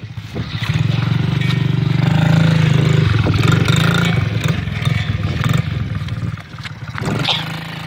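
Honda pit bike's small single-cylinder engine running close by, revving up and down. It is loudest in the middle and drops back about six seconds in.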